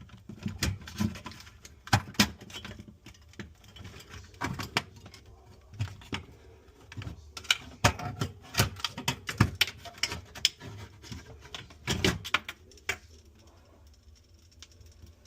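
Irregular sharp clicks, taps and knocks of tools and parts being handled during work on the refrigerator, dying away near the end.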